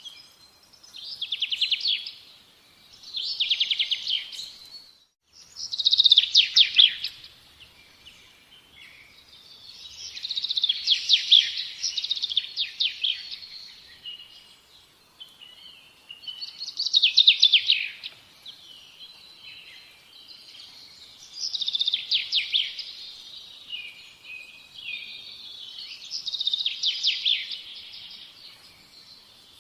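A songbird singing short, high trilled phrases of rapid notes, repeated every few seconds, with a brief break about five seconds in.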